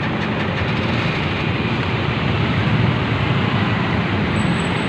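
Large diesel coach engine idling steadily, mixed with street traffic noise.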